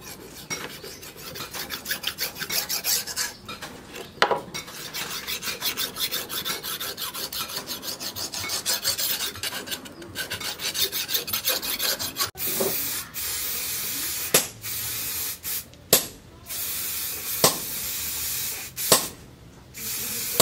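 Hand file rasping in quick strokes along a steel sickle's inner edge, sharpening it. About twelve seconds in, this gives way to an aerosol spray can hissing in several separate bursts.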